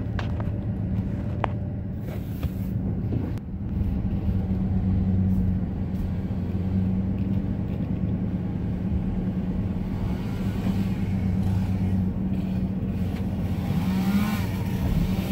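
Cabin noise inside a van driving slowly: a steady low engine hum with road noise.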